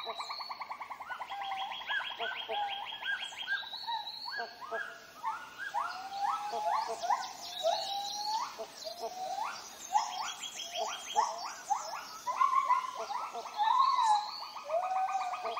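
Tropical rainforest animal chorus: rapid, evenly pulsing trills overlapped by many short, upward-sweeping bird calls.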